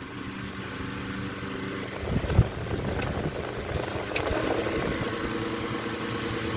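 Antique Westinghouse brass-bladed table fan's motor humming steadily, with a low thump about two seconds in and a couple of light ticks after it, after which the hum settles at a different pitch. The blade is out of balance and makes the fan shake.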